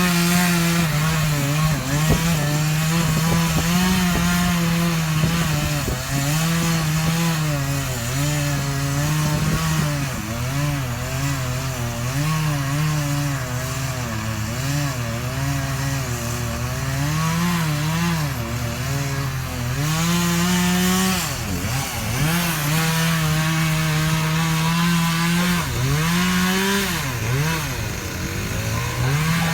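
Chainsaw running and cutting wood, its engine pitch dipping and recovering again and again as it works through the cut.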